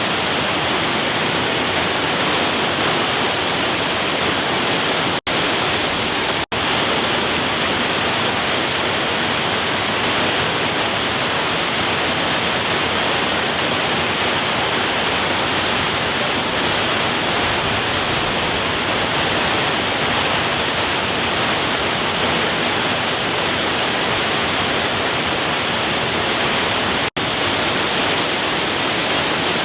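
Kawi waterfall: loud, steady rushing of falling water. The sound cuts out for an instant three times.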